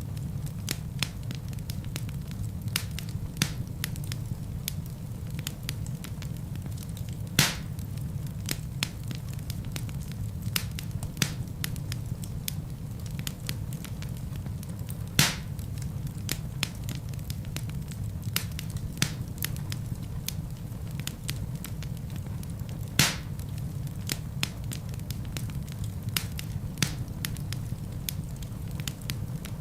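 Wood fire burning in a fireplace: a steady low rumble of flames with frequent small crackles and three louder wood pops spaced about eight seconds apart.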